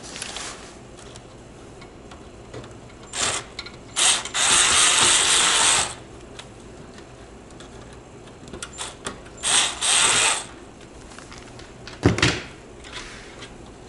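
Bosch cordless screwdriver running in short bursts as it turns screws inside a PC case: a brief burst, a run of about two seconds, then another of about a second. A sharp knock near the end.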